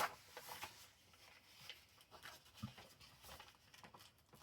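Faint rustles and soft taps of paper being handled and glued down, with a slightly louder tap at the start and a low thud a little past halfway.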